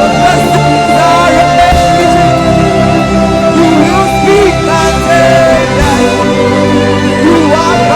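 Live worship band playing a slow, sustained passage, with held keyboard chords and short gliding melodic lines from a lead voice or guitar above them.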